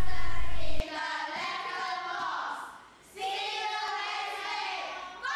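A group of children's voices in unison, starting about a second in, with a short break about three seconds in before the voices come again. Before the voices, a low hum stops abruptly.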